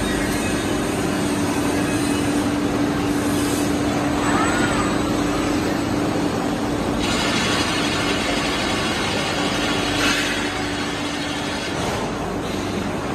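Forging-plant machinery running: a loud, steady mechanical drone with a constant hum. A hiss starts about seven seconds in and lasts about three seconds, and a short sharp knock sounds about ten seconds in.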